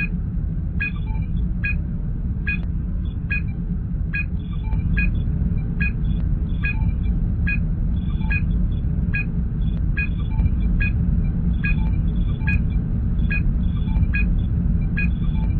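Star Trek starship ambience sound effect: a steady low engine rumble with a short electronic computer blip repeating evenly, a little more than once a second, like a sensor scan tone.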